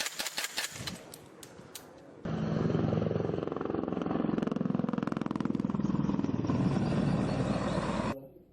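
A quick series of sharp cracks, then an engine running loud and steady with a fast, even pulse for about six seconds before cutting off abruptly.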